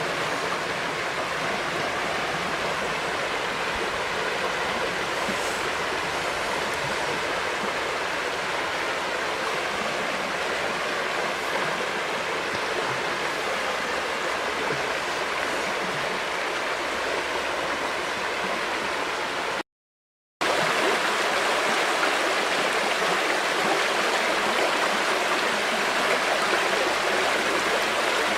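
River water flowing in a steady rush, with a dead-silent break of under a second about two-thirds of the way through, after which the flow is a little louder and brighter.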